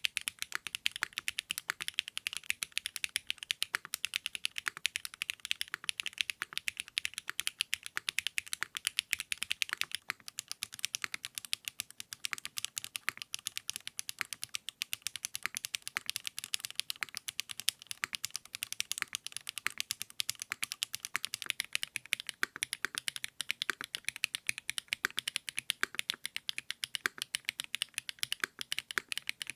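Continuous fast typing on a custom mechanical keyboard fitted with 80Retros x HMX KD400 switches: a dense, even stream of sharp keystroke clacks, several a second.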